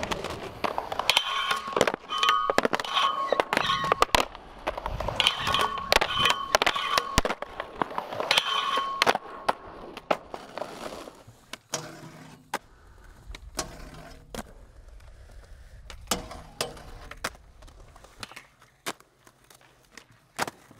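Skateboards on a concrete skatepark: sharp clacks of tails popping and boards landing, with wheels rolling on concrete between them. The clacks come thick and fast in the first half and are fewer and quieter near the end.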